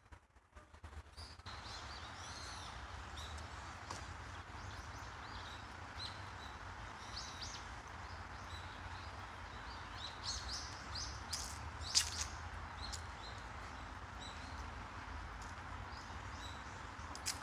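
Small birds chirping and twittering on and off, busiest around ten to twelve seconds in, the loudest a sharp call about twelve seconds in, over steady outdoor background noise with a low rumble that comes in after a second or so.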